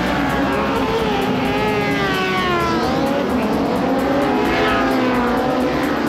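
A pack of racing sport motorcycles revving hard and accelerating away from a standing start. Several engine notes rise and fall over one another as the bikes pull away.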